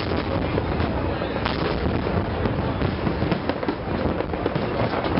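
Fireworks going off continuously over the harbour: a dense, constant crackle of many small bursts with deeper booms mixed in.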